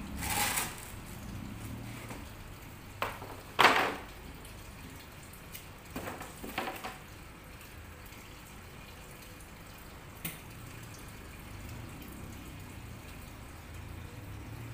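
Water splashing and sloshing in a glass aquarium tank as hands work in it, in a few short bursts, the loudest about three and a half seconds in, over a steady low background.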